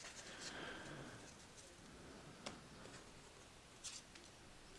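Near silence with light handling of trading cards and two faint clicks, one about halfway through and one near the end.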